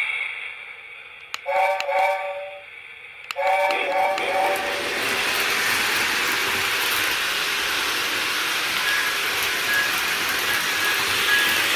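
Lionel LionChief Hogwarts Express toy steam locomotive sounding two whistle blasts of about a second each from its onboard sound system, after a brief pause. The train then runs on, with a steady rumble of its motor and wheels on the O gauge track.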